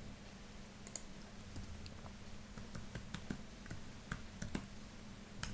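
Computer keyboard keys being tapped as a command is typed: an irregular run of faint clicks over a steady low hum.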